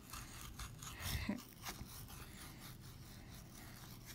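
Small plastic pick scraping and picking at a soft, water-soaked excavation bar: faint, irregular gritty scratching, a little louder about a second in.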